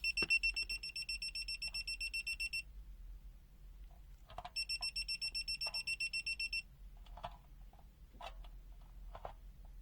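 ANENG 683 multimeter's buzzer sounding a rapid, high, pulsing beep, about seven beeps a second, in its live wire test mode: the sign that the probe is on a hot (live) wire. It stops after about two and a half seconds and sounds again for about two seconds in the middle, with faint clicks of the test leads being handled.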